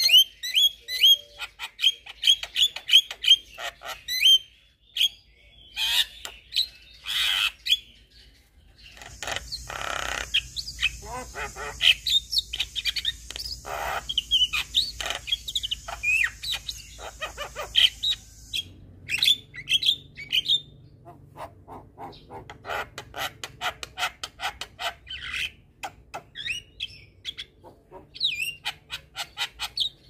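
Javan myna (white-eyed jalak kebo) singing: a quick run of rapid chirps, then bursts of varied chatter, whistles and squawks with short gaps between.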